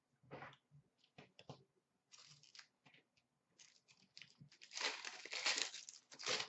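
Plastic wrapper of a 2016-17 Upper Deck SP Authentic hockey card pack crinkling in the hands in a few short rustles, then torn open in a longer, louder rip near the end.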